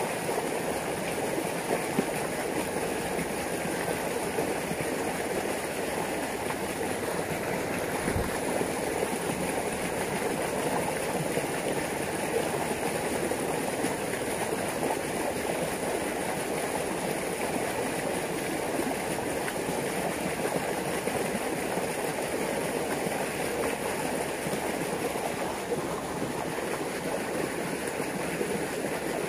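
Water rushing steadily through a narrow concrete-lined irrigation channel, a continuous even rush.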